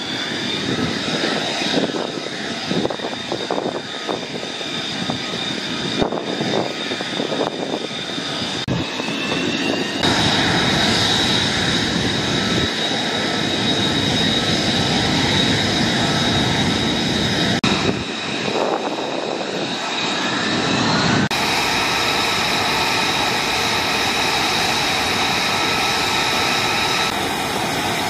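F-35B fighter jets' F135 turbofan engines running on the ground: a steady high-pitched whine over a broad jet rush. The mix shifts abruptly a few times, a little louder from about ten seconds in.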